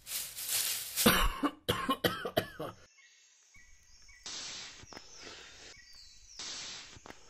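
Cartoon sound effects: a hissing build, a sharp hit about a second in and several short loud bursts, then two long hissing breaths from a cartoon monkey drawing on a joint, each lasting a second or more.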